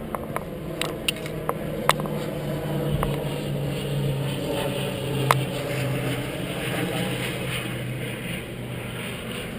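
Scattered sharp pops of airsoft guns firing, several in the first two seconds and one more about five seconds in, over a steady low motor hum.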